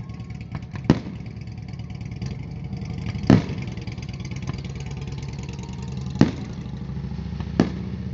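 Aerial firework shells bursting: four sharp booms a second or more apart, the second one the loudest. A steady low engine hum runs underneath.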